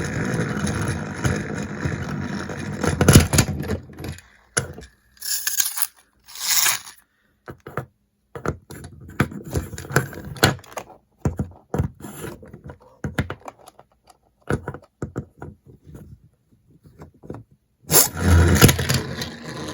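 Small plastic toy pieces being handled and set down: scraping, clicking and clattering, denser for the first few seconds and again near the end, with scattered single knocks in between.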